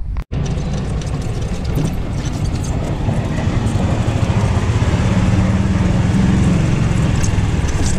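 Golf cart driving along a paved street: a steady low rumble of the cart running and its tyres on the road, starting just after a brief dropout near the start.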